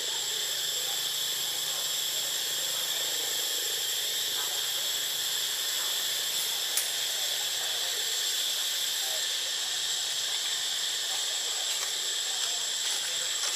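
Steady high-pitched drone of an insect chorus, unbroken throughout, with one sharp click about seven seconds in.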